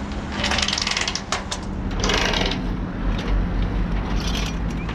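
Bursts of mechanical clicking and clanking, returning about every two seconds, over a steady low hum.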